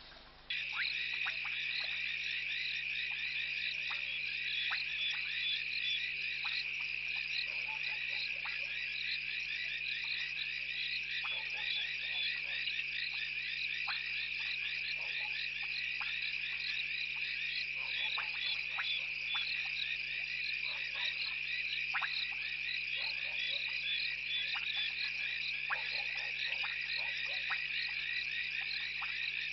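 Dense chorus of frogs calling at a waterhole at night: many overlapping high trilling calls over a steady high drone. It starts suddenly about half a second in.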